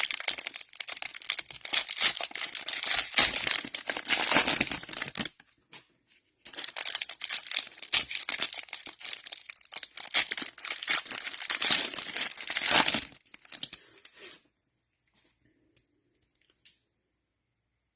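Cellophane wrapper of a Mosaic football card cello pack being torn open and crinkled by hand, in two bouts of about five and six seconds with a brief pause between them, then a few faint rustles as the cards come out.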